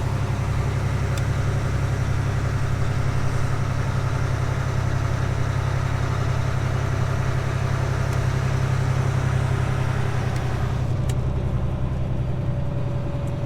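Diesel engine of a grain road train running with a steady low drone. About eleven seconds in, the higher road and engine noise falls away while the low drone continues, as the truck slows.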